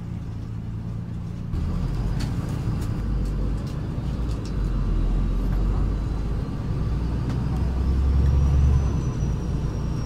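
Engine and road noise inside a moving city bus, growing louder about a second and a half in, with a thin high whine that rises in pitch in the second half.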